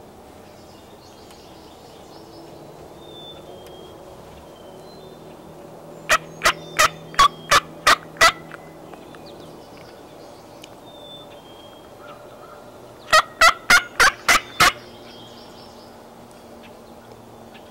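Wild turkey tom gobbling twice, each gobble a fast rattle of about seven notes lasting around two seconds, the second coming some five seconds after the first.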